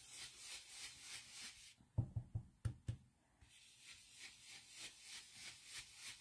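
Ink blending brush swirled over cardstock: faint, soft brushing, about four strokes a second. About two seconds in, a quick run of about five low knocks breaks in before the brushing resumes.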